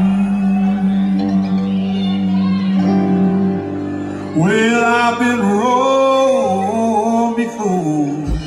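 Live country band music with electric guitars and fiddle. A long held note gives way, about four seconds in, to a louder melodic line that bends and wavers in pitch.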